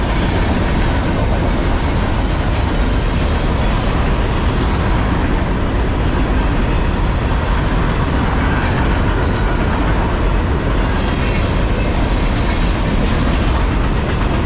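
A long freight train's cars rolling past: a steady, loud rumble and rattle of steel wheels on the rails, with scattered clicks as the wheels cross rail joints.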